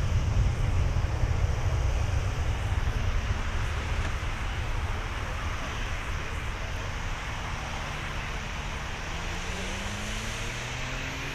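Boeing 757-200 freighter's twin jet engines at takeoff thrust: a deep, steady rumbling roar that fades as the aircraft accelerates down the runway away from the listener.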